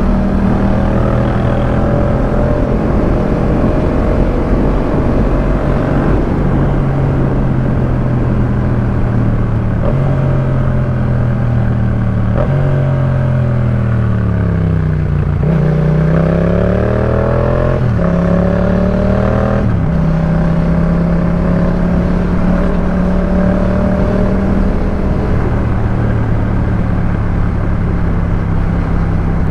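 2018 Yamaha MT-07's 689 cc parallel-twin engine through a Jeskap K4 full aftermarket exhaust, ridden at a steady pace with occasional gear changes. About halfway through the note falls away as the bike slows, then it accelerates with a rising note through two quick upshifts before settling at a steady cruise.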